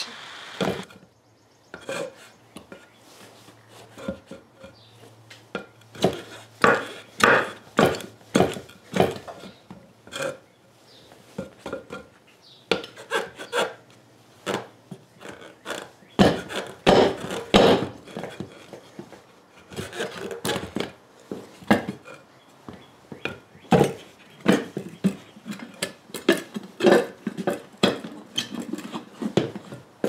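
Wooden 2x4 knocking against vise-grip pliers clamped on a lawn-tractor tire rim as it is pumped by foot to break the tire's bead, with metallic clanks of the pliers. The strikes come in runs of several, about two a second, with short pauses between runs.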